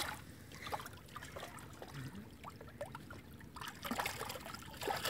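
A hooked carp thrashing and splashing in shallow water at the river's edge as it is pulled in on a hand line. The splashes come irregularly, with a busier cluster near the end.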